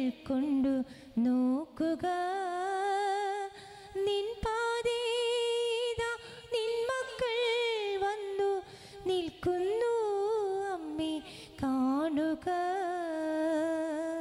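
A woman's solo voice singing a Malayalam hymn to Mary, unaccompanied, in long held notes with vibrato.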